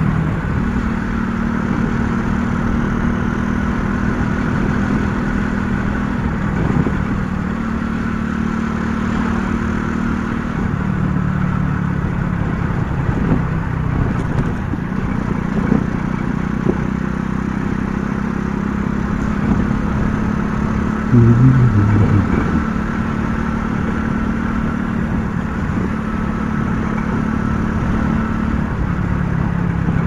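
50 cc motorcycle engine running steadily under way, its pitch shifting a few times with the throttle. A short louder sound stands out about two-thirds of the way through.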